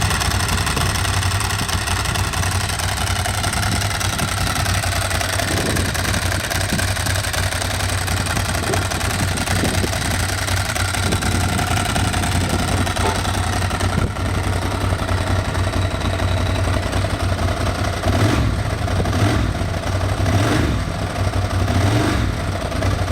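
Ducati 1100's 90-degree V-twin running at idle with the rattle of its dry clutch, which is the normal sound of a dry clutch and not an engine fault. The sound swells briefly a few times near the end.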